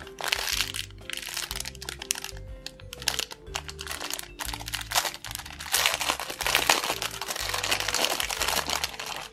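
Thin clear plastic bag crinkling and crackling as it is handled and opened by hand, loudest near the start and again in the last three seconds, over light background music.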